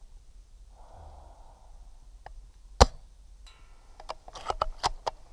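Tokyo Marui VSR-10 G-Spec spring-powered airsoft sniper rifle firing one sharp shot about three seconds in. A quick run of clicks and metallic rattles follows as the bolt is cycled, compressing the spring for the next shot.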